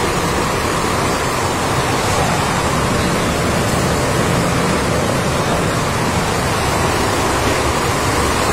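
Richpeace multi-head computerized embroidery machine running, its many needle heads stitching at once in a steady, even mechanical noise.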